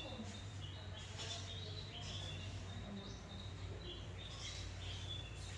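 Birds chirping in short, repeated high notes, over a steady low hum.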